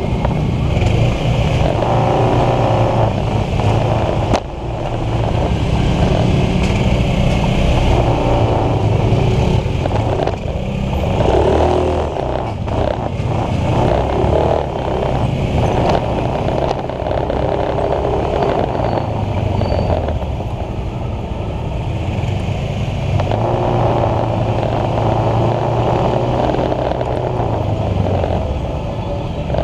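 Ride on a small motor scooter: the scooter's engine runs steadily, swelling and easing with the throttle, among surrounding scooter and car traffic.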